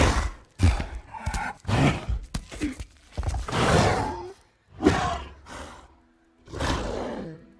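Movie sound design for a giant gorilla: a string of heavy thumps and knocks, then deep growls and roars, the longest about three seconds in.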